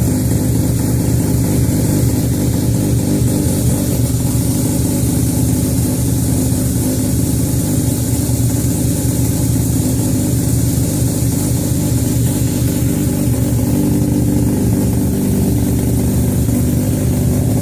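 Mazda RX-7 FD3S rotary engine running steadily, loud and even with no revving.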